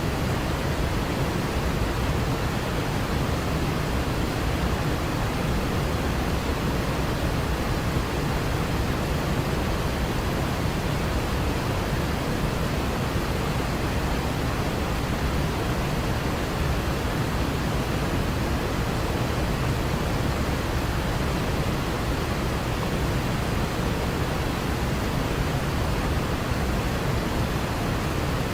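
Waterfall: a steady, unbroken rush of falling water, heavy in the low end.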